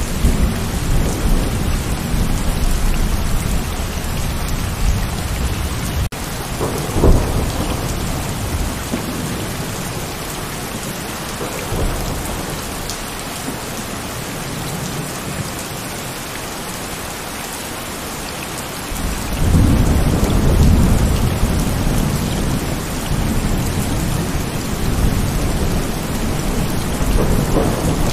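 Heavy rain falling steadily with rolling thunder. A sharper crack of thunder comes about seven seconds in; the rumble dies down through the middle, then a new roll of thunder builds about twenty seconds in and carries on to the end.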